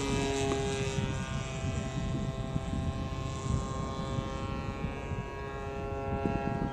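Engine and propeller of a 106-inch Hangar 9 Piper Cub radio-controlled model plane in flight overhead, running at a steady, even pitch.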